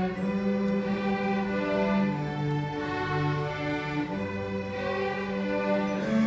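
A student orchestra led by violins plays a slow piece of held notes that change about once a second over a sustained bass line.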